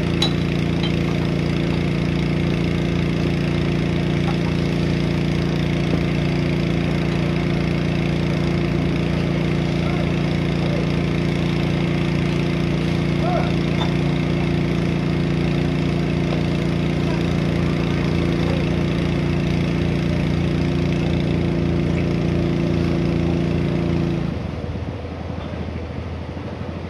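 Pindad hydraulic excavator's diesel engine running steadily, with a fast low pulsing beneath. A little before the end the engine sound drops off suddenly to a quieter, lower sound.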